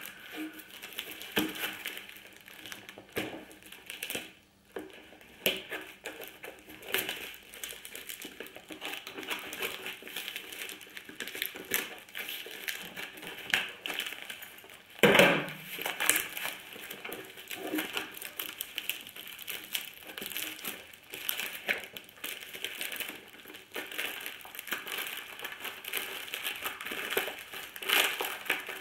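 Parcel wrapping being torn open and pulled off by hand: continuous irregular crinkling and crackling of taped paper and plastic packaging, with one louder crackle about halfway through.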